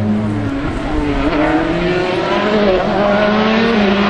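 Rally car engine revving hard, its pitch climbing and dropping several times through gear changes and lifts as the car comes on, with a hiss that grows louder near the end.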